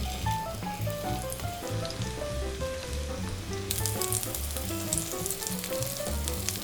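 Shrimp and vegetable pancakes sizzling as they fry in oil in a pan, the crackle growing louder about halfway through, over background music.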